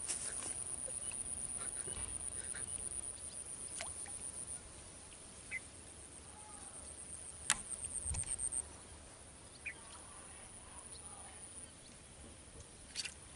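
Faint outdoor ambience with a high, thin insect buzz that pulses, stops and starts again, and a few soft clicks.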